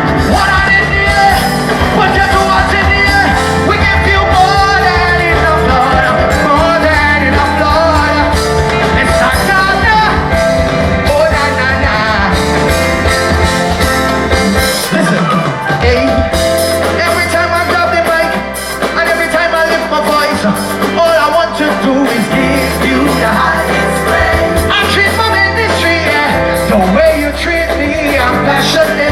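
Live band playing up-tempo gospel soca with sung vocals over a steady bass line and beat.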